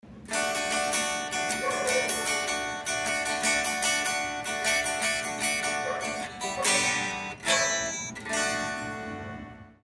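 Music of strummed and plucked guitar, fading out just before the end.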